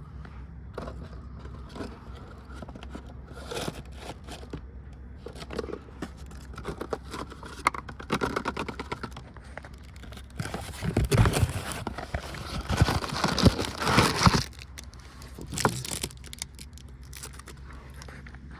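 Irregular rustling, scraping and clicking of hands handling tools and parts during an oil change, loudest a little past the middle.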